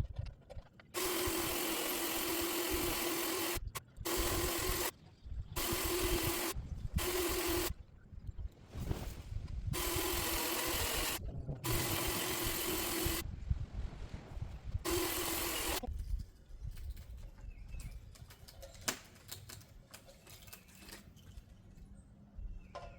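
Power saw cutting into a tree limb, run in about seven bursts of one to three seconds, the motor stopping fully between them; the cuts end about two-thirds of the way through, and the rest is quieter with a few faint clicks.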